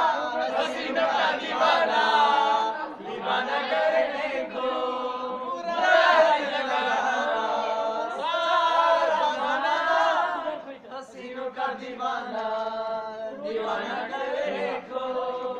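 A group of men singing together without instruments, their voices joined in long held notes.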